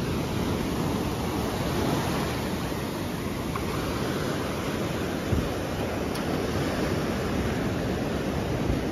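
Ocean surf washing up a sandy beach, a steady rushing noise, with wind buffeting the microphone.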